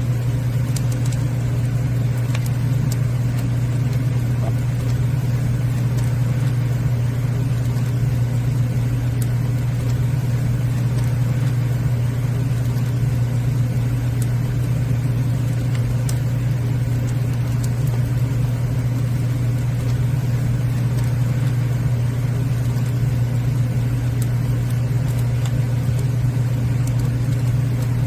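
Wood fire burning: a steady, loud low rumble with a few sharp crackles scattered through it.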